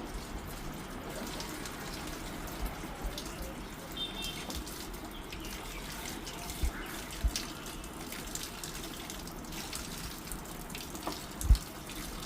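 Water running steadily, with a few short low knocks, the loudest near the end.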